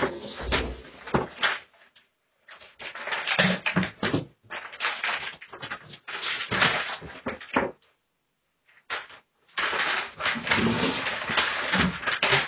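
Orange plastic toy being batted and knocked across a tiled floor by a cat: irregular hard clattering knocks with two short silent gaps, becoming a denser, continuous clatter for the last few seconds.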